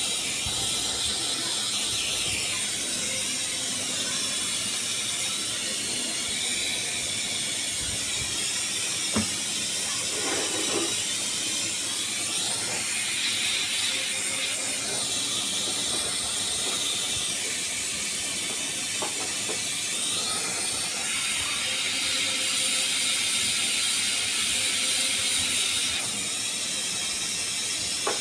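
Gas torch flame hissing steadily while aluminium is heated for welding, with a single sharp click about nine seconds in.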